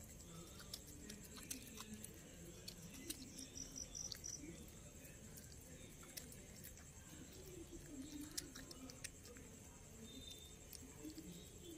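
Quiet sounds of a puppy eating soft idli from a tiled floor: scattered small mouth clicks and smacks as it chews and licks, over a steady faint high whine.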